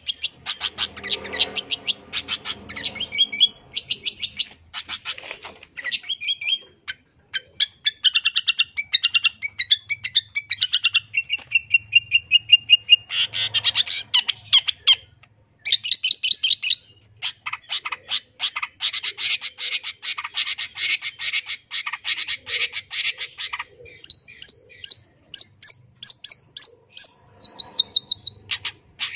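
Long-tailed shrike (cendet) singing a long, varied song of fast chattering note runs, filled with mimicked calls of other birds. About halfway through it holds one steady whistle, and later it gives a long run of rapid ticking notes.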